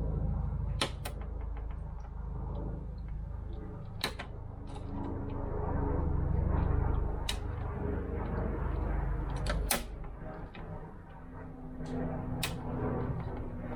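Wire snippers cutting off the protruding metal tangs of plastic-welding staples: about six sharp snaps a few seconds apart, with light handling noise and a low rumble underneath.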